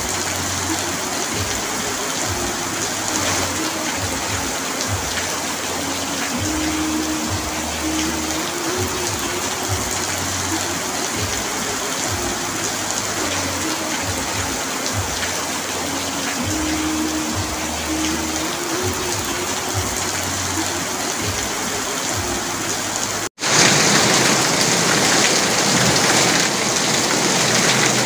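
Heavy rain drumming steadily on an asbestos (fibre-cement) roof. About three-quarters of the way through the sound cuts out for an instant, then comes back louder.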